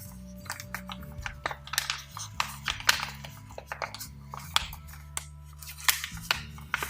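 A sheet of paper crinkling and crackling in the hands as a folded origami paper boat is pulled open and shaped, in many short sharp crackles. Soft background music plays underneath.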